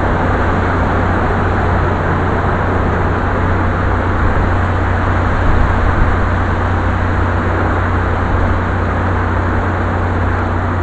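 Steady rainfall: a dense, even hiss with a steady low hum underneath.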